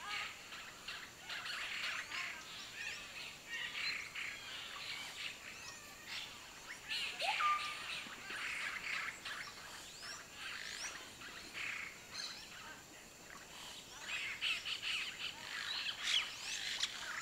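Forest ambience: a busy scatter of short, high-pitched chirps and quick calls, with one clearer rising whistle about seven seconds in.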